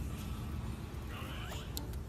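French bulldog puppy giving one short, high squeak about a second in, over a low steady rumble.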